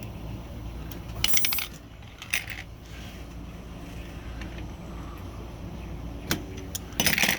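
Small metal typewriter parts clinking and clicking as they are handled and fitted back together. There is a rattling burst about a second in, a few single clicks, and a louder metallic clatter near the end.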